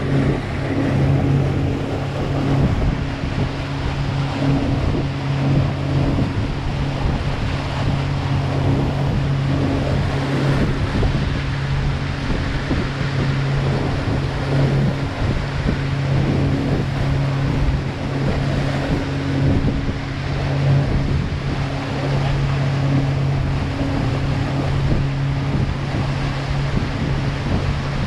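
Water taxi's engine running at a steady hum with the boat underway, over rushing water and wind noise on the microphone.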